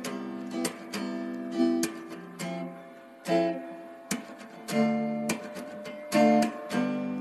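Background music of acoustic guitar, plucked and strummed chords ringing out one after another.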